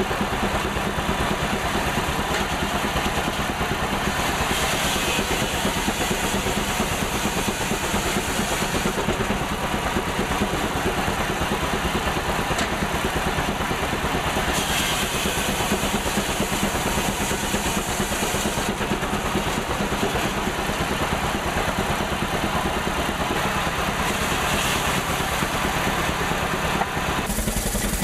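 Belt-driven circular sawmill running off a steam traction engine, with a steady fast mechanical clatter. The sound brightens three times as the blade cuts through a log, and changes abruptly near the end.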